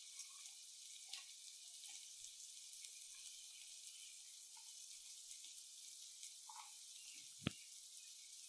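Faint sizzle of chopped onion and garlic frying in butter in a steel pan on a low flame, with a few soft ticks as chopped green beans are dropped in. One sharp click comes near the end.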